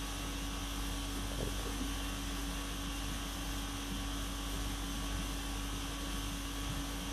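Steady machine hum and hiss with a constant low drone.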